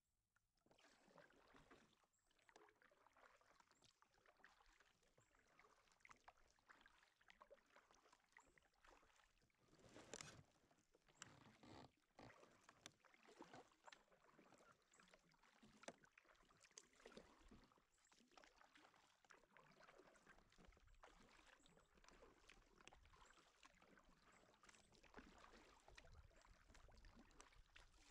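Faint kayak paddling: the paddle blades dipping and pulling through the water with light splashing and dripping, and one louder splash about ten seconds in.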